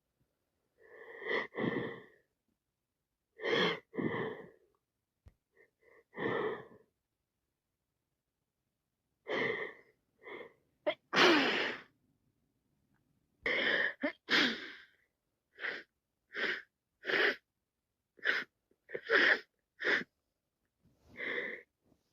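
A person with a cold sneezing again and again: more than a dozen separate sneezes, with a pause early on, one loud, long one about eleven seconds in, then quicker sneezes one after another in the second half.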